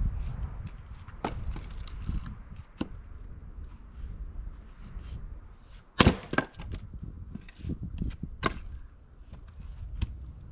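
Splitting axe striking tamarack rounds on a chopping block. A sharp crack about six seconds in is the loudest, another follows right after it, and a third comes about two seconds later, with lighter wooden knocks before them.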